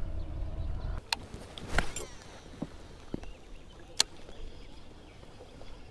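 Handling of a baitcasting rod and reel in a kayak: a low rumble that stops about a second in, then a few sharp clicks and knocks, the sharpest about four seconds in.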